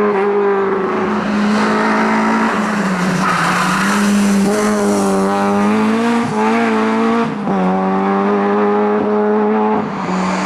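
Rally car engine held at high revs on a special stage. Its pitch stays fairly steady, with short drops at gear changes about six, seven and ten seconds in.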